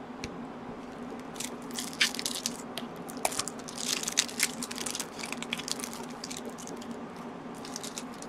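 Foil wrapper of a Magic: The Gathering Alliances booster pack being torn open and crinkled by hand. The sharp crackles start about a second in, are thickest in the middle and thin out to scattered crinkles near the end.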